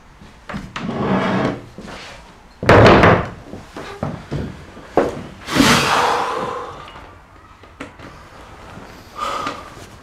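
Wooden chair being moved and set down on a wooden floor: a few knocks and scrapes, with one hard thud about three seconds in and another loud knock with a short ringing tail near six seconds.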